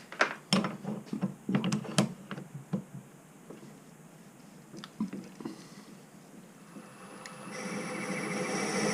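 Metal clatter of knocks and clicks from tools and parts being handled on a metal-turning lathe, then the lathe's motor starting up, its running sound building steadily over the last two seconds.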